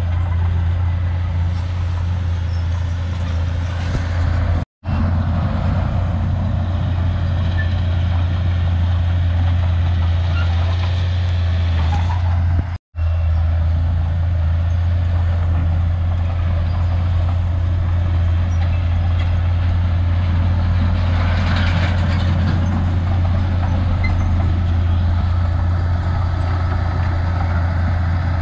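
Shantui crawler bulldozer's diesel engine running steadily with a deep drone, cut by two brief drop-outs to silence about five and thirteen seconds in.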